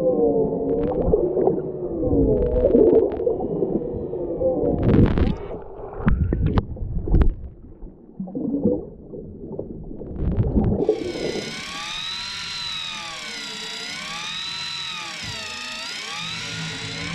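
Muffled underwater sound picked up by a camera on a deep-drop line: a wavering low hum with gurgling water and a few sharp knocks. About eleven seconds in it gives way to a steady whine with many overtones that rises and falls in pitch in a regular slow wave.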